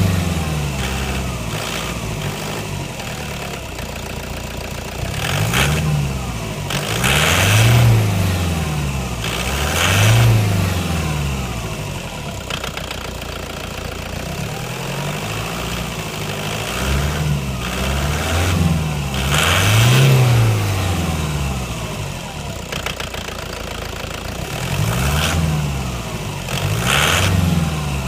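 Toyota Hilux's 2KD-FTV 2.5-litre turbo diesel idling and revved briefly about seven times, each rev rising and falling back to idle.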